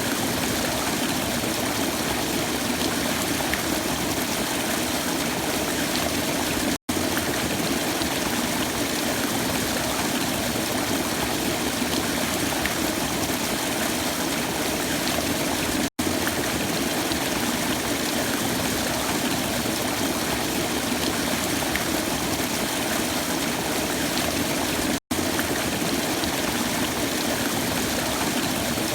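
Waterfall, water rushing steadily, cut off for an instant three times, about every nine seconds.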